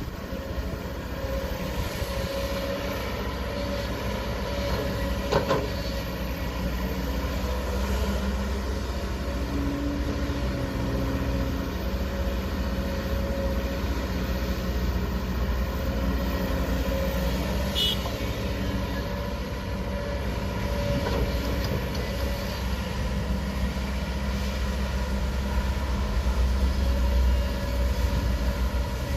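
Kobelco 20-ton excavator's diesel engine running steadily, with a brief knock about five seconds in.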